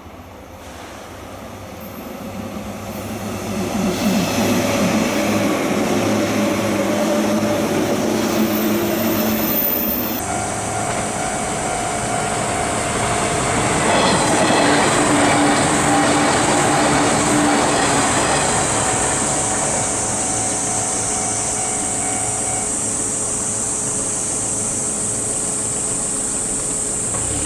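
485-series electric train running on the rails, getting louder over the first few seconds as it comes closer. About ten seconds in the sound changes abruptly to a steadier train noise with a steady hum of several tones.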